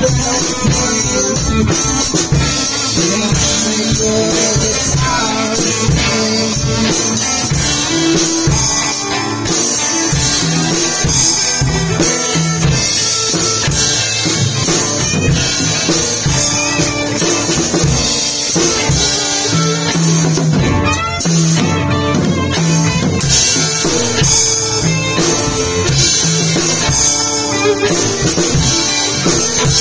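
Rock band playing an improvised jam: two electric guitars and a drum kit playing together, loud and continuous.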